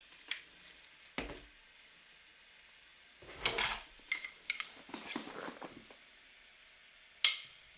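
Scattered clinks and knocks, one with a low thud, and short stretches of scraping, as of tools or building materials being handled.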